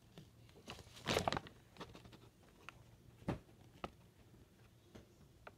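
A sheet of paper rustling and crinkling as it is held and moved close to the phone, loudest about a second in, followed by a few short light taps.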